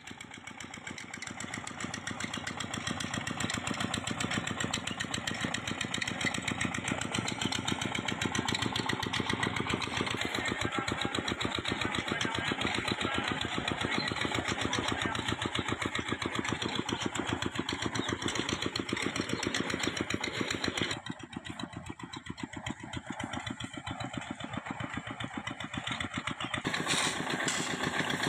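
An engine running steadily with a fast, even beat. Its sound drops and changes about three-quarters of the way through, and changes again near the end.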